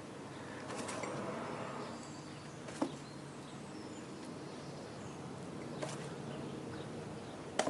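A few light metallic clicks as brake pad retaining pins and caliper parts are handled, three in all, the last the loudest near the end, over steady low background noise.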